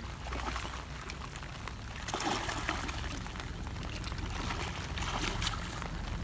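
Shallow muddy water sloshing and splashing as two boys crawl and grope through it by hand, feeling for fish.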